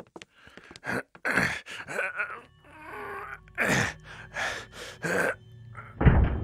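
A person's breathy gasps and groans, a string of short heavy breaths and moans, some falling in pitch, with a louder, deeper one about six seconds in.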